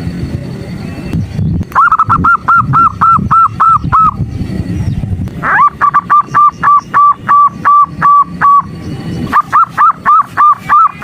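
Female zebra dove (perkutut) lure call: runs of rapid, clear, evenly repeated notes, about four to five a second, in three bursts of several seconds each starting about two seconds in. A low rumble fills the first second and a half before the calls start.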